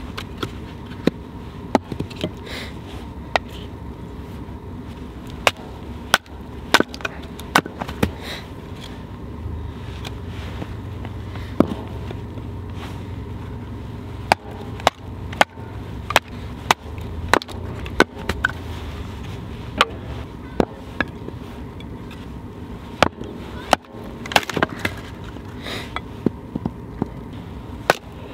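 Firewood being split by batoning: a fixed-blade bushcraft knife driven down through a split with strikes from a wooden baton, giving sharp, irregular wood knocks in quick runs. A low steady rumble sits underneath.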